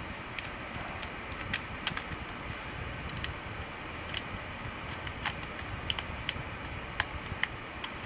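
Irregular small clicks and ticks of a long-necked Phillips screwdriver turning the screws that hold a hard drive in an optical-bay drive caddy, over a steady background hum.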